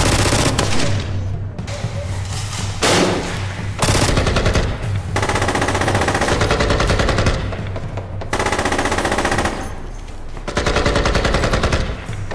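Gunfight sound effects: several bursts of rapid automatic gunfire, most about a second long and one lasting about three seconds, with short breaks between them.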